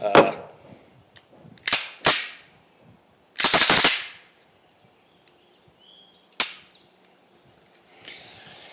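Handgun shots, about five at uneven intervals: a pair close together early, a longer, rougher report in the middle, and a last one later on.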